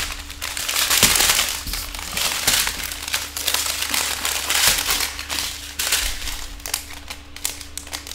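Crinkling and crackling of a strip of small clear plastic bags of diamond painting drills as it is pulled across the table and handled.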